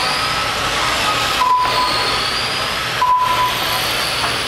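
Radio-controlled GT3 race cars running on an indoor carpet track: a steady hiss from the cars with faint motor whines rising and falling, and two short beeps about a second and a half apart from the lap-timing system as cars cross the line.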